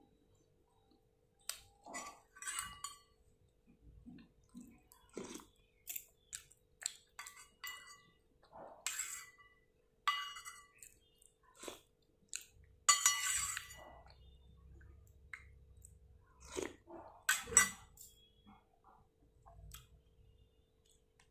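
Metal spoon clinking and scraping against a stainless-steel pot, with mouth sounds of eating soup, in scattered short bursts; the loudest comes about two-thirds of the way through.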